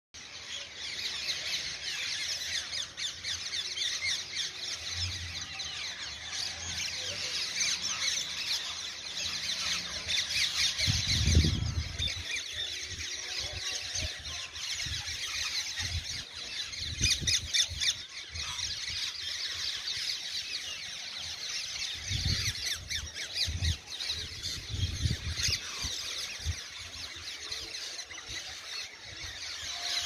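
Large flock of rose-ringed parakeets screeching in a dense, continuous chorus of overlapping shrill calls, broken by a few low thumps.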